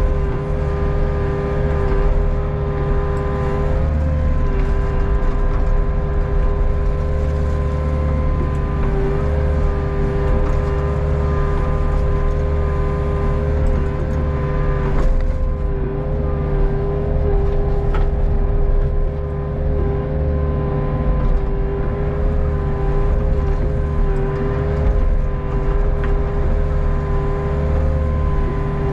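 Hitachi ZX48U mini excavator running steadily, heard from the operator's seat as the arm and bucket work: a constant low engine hum with a steady whine above it.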